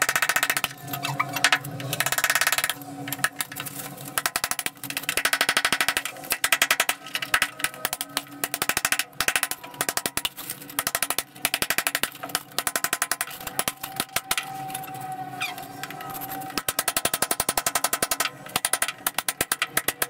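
Rapid hammering in runs with short pauses: a power chipping hammer breaking out channels in a bathroom wall for the pipes.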